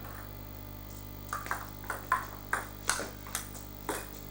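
Table tennis rally: the ball knocking sharply off the bats and the table, about a dozen quick hits starting about a second in, in an alternating back-and-forth rhythm.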